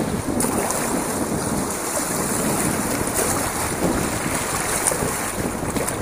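Fast river current rushing and splashing around a small kayak running through riffles, with wind buffeting the microphone.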